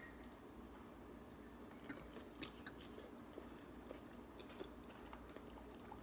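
Faint chewing with scattered small crunches and clicks as seafood peanuts are eaten.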